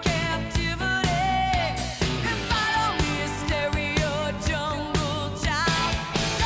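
Pop-rock song with a sung vocal over a steady drum beat.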